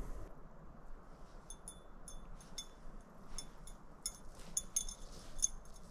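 Small metal objects clinking and jingling: irregular light chinks with a short high ring, starting about a second and a half in, over a faint hiss.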